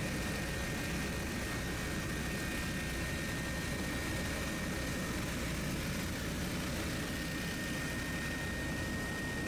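Helicopter in flight heard from inside the cabin: steady rotor and engine noise with a constant high whine.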